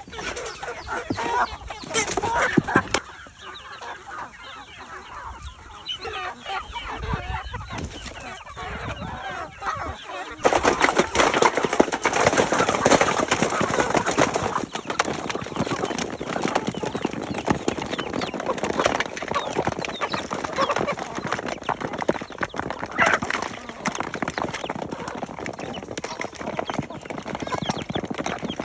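A flock of chickens clucking and calling over one another. About ten seconds in, the clucking gets suddenly much louder and busier.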